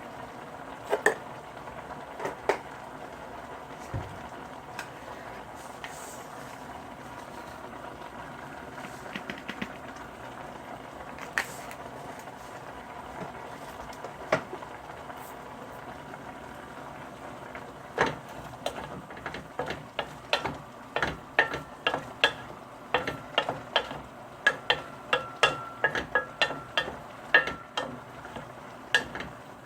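Food cooking on a gas stove with a steady sizzling hiss, and a metal utensil knocking and clinking against the pan: a few scattered strokes at first, then quick stirring strokes, two to three a second, through the second half.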